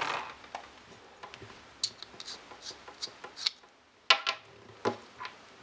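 Scattered small clicks and ticks of a clip-on phone lens kit being handled in the fingers: the small lens and its plastic clip clicking and scraping as a lens is taken off the clip, with a few sharper clicks about two, four and five seconds in.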